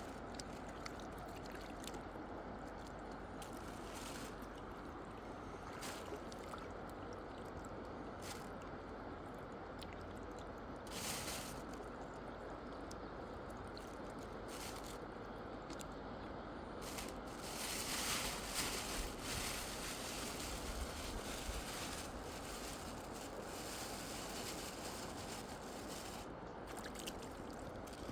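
Mountain river water running steadily, with a few brief knocks or rustles and a louder rush of noise a little past the middle.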